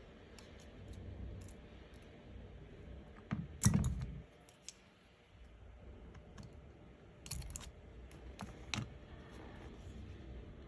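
Small repair tools clicking and tapping on an iPhone's internal parts, scattered light clicks with one louder knock about three and a half seconds in.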